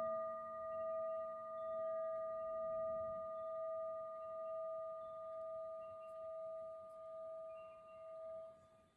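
Tibetan singing bowl ringing on after being struck or rubbed, its overtones pulsing slowly in loudness as it decays, fading out near the end.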